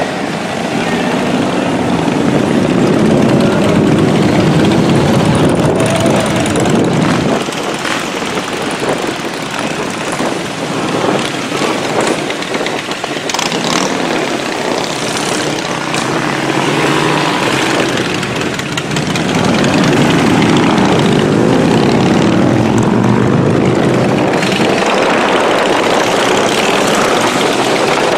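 Motorcycle engines running, swelling in the first several seconds, easing off, then growing louder again about two-thirds of the way through.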